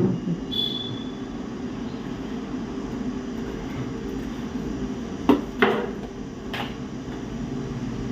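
Three sharp clicks or knocks, two close together about five seconds in and one a second later, over a steady low hum, with a brief high beep about half a second in.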